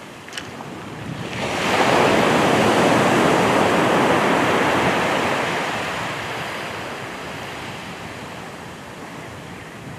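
Surf breaking on a shingle beach: a wave's wash swells about a second and a half in, then slowly fades.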